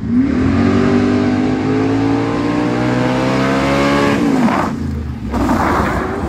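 Racing fire truck's engine running hard as it accelerates down the course, its pitch climbing steadily for about four seconds before dropping off. A loud burst of noise follows near the end.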